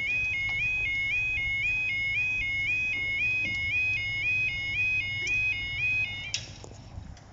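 Level crossing warning alarm sounding its two-tone warble, a short stepped rising tone repeated about twice a second, which cuts off a little over six seconds in.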